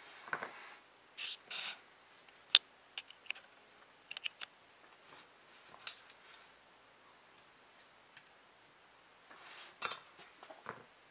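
Small hand-tool handling sounds while cotton wick is trimmed and tucked around the coil of a rebuildable dripper: a few short soft snips and scattered sharp metal clicks, the loudest about two and a half seconds in.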